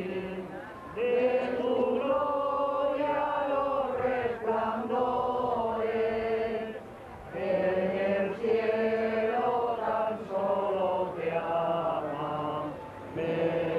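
Voices singing a Rocío pilgrimage song (sevillana rociera) in long, drawn-out phrases, with short breaks about a second in, around halfway and near the end.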